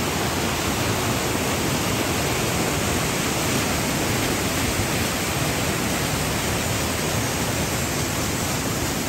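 Doğançay Waterfall's water crashing down close by, a loud, steady, unbroken rush of noise.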